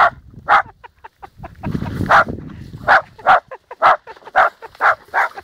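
Dog barking in a run of sharp barks, about two a second, with a short break about a second in.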